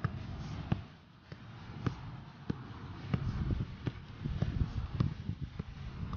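Soccer ball being juggled: about ten dull taps as the ball bounces off the foot and thigh, roughly one touch every half second.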